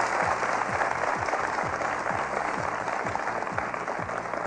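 Studio audience applauding over show music with a steady beat of short, low, falling drum hits about three a second; the applause eases slightly near the end.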